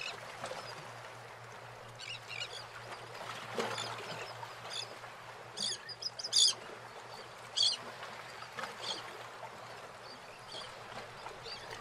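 Birds chirping: short, scattered calls over a steady faint hush, the most prominent ones in the middle.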